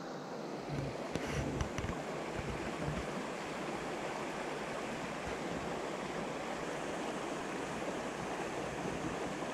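A small mountain stream running over rocks and gravel: a steady, even rush of flowing water, with a few light knocks about a second in.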